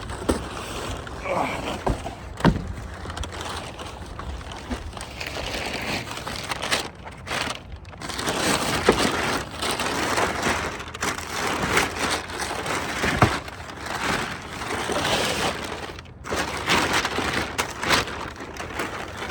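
Plastic front grille and its trim being pried and pulled off a Range Rover Sport: irregular clicks, snaps and scraping of plastic clips letting go.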